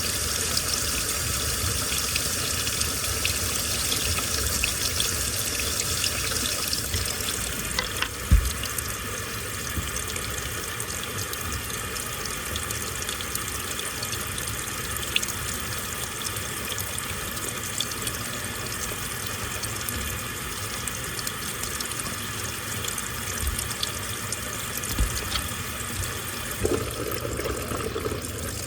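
Water running and sloshing inside a washing machine drum over a steady low rumble from the machine, with a few short thumps, the loudest about eight seconds in.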